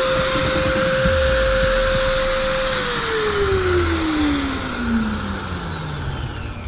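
Corded electric drill mounted in a drill press stand, running at a steady speed with a high whine, then switched off a little under three seconds in and winding down, its whine falling steadily in pitch as the motor slows.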